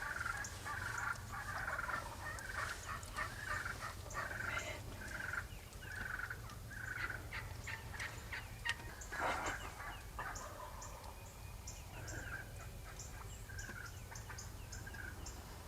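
Wild turkeys calling, a long series of short, evenly repeated calls, with a louder, fuller call about nine seconds in.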